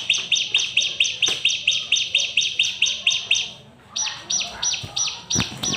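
Bar-winged prinia (ciblek) singing: a fast run of sharp, high repeated notes, about four to five a second, breaking off briefly a little past halfway and then starting again.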